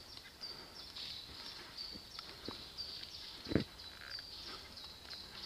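High-pitched chirping from forest wildlife, a short call repeated about two or three times a second, over faint crackles of twigs and leaf litter, with one louder knock about three and a half seconds in.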